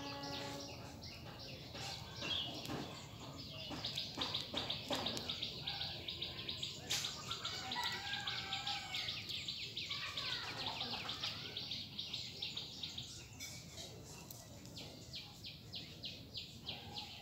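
Fast, high-pitched chirping in long runs, about six or seven chirps a second, with other bird calls between. A held tone stops just under a second in.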